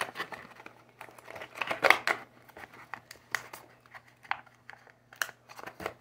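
Crinkling and rustling of plastic toy packaging as squishy stress balls are stuffed back into their box, with irregular small clicks and taps; the loudest rustle comes about two seconds in.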